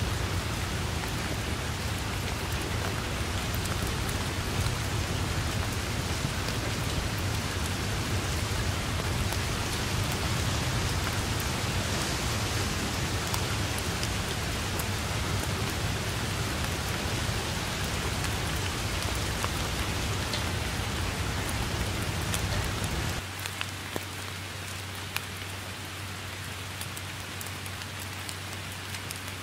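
Steady heavy rain falling on grass and foliage: an even hiss of countless drops. A deep rumble underneath cuts out abruptly about three-quarters of the way through, leaving the rain slightly quieter, with a few distinct drop taps.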